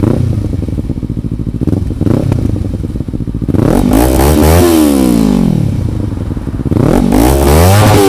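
Kawasaki Ninja 300 parallel-twin engine, loud through an Akrapovic slip-on exhaust with its baffle removed. It idles for a few seconds, then is revved twice, the pitch rising and falling each time.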